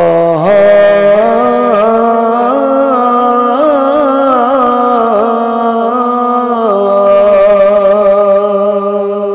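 A man singing a slow Punjabi Sufi kalam line, drawing out long held notes with wavering ornaments; the line breaks off near the end.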